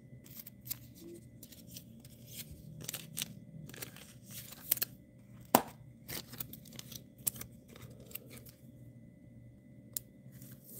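Crinkling and crackling of a clear plastic trading-card sleeve as a card is slid into it and handled: irregular sharp crackles and clicks, the loudest about halfway through.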